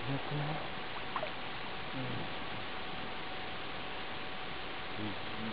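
Steady even hiss with a faint constant hum, broken by a few short low vocal sounds from the swimmer: at the start, about two seconds in, and near the end.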